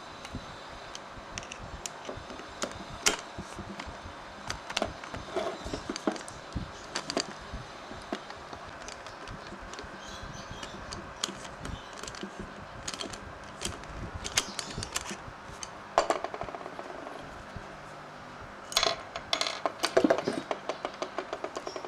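Small metal clicks and taps of a screwdriver working the jets in an Aisan carburetor body, scattered at first, with a run of quick clicks near the end.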